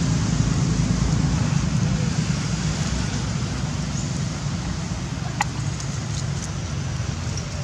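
Steady low rumble of outdoor background noise, with one sharp click about five and a half seconds in.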